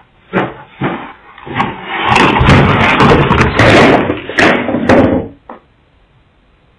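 A few knocks, then about three seconds of loud, dense clattering and rubbing on a doorbell camera's microphone as a person presses against it while juggling a pizza box and other things. It stops abruptly a little after five seconds.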